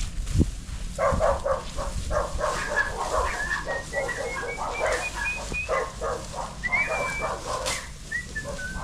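A dog barking in a quick run of barks and yaps for about five seconds, then stopping. A few thin, high whistle-like calls sound over the end.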